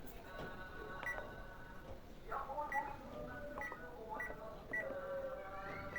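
Short high electronic beeps from a Sharp washing machine's control panel, about five of them at uneven intervals, as the newly fitted control module responds.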